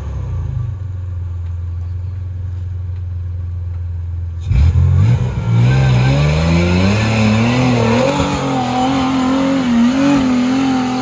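Toyota pickup engine idling steadily, then about four and a half seconds in the throttle opens and the revs climb and hold high, wavering, as the truck claws up a rutted sand hill with its tyres spinning.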